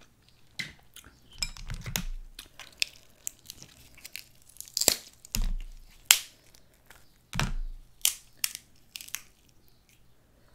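Snow crab leg shells being cracked and snapped apart by hand: a string of sharp cracks and crunches, with a few dull knocks.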